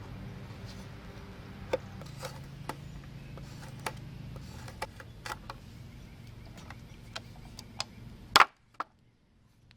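Scattered knocks and clicks from handling a 1950s Nobles SpeeDry floor vacuum, over a steady low hum. A loud double knock comes about eight and a half seconds in, then near silence.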